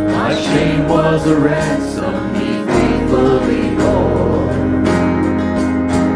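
Church worship team singing a worship song together into microphones, backed by a small band with bass guitar and guitar.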